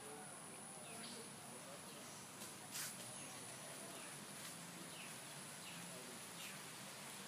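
Faint rural outdoor ambience: short falling bird chirps every second or so over a steady high-pitched whine and hiss, with one sharp click about three seconds in.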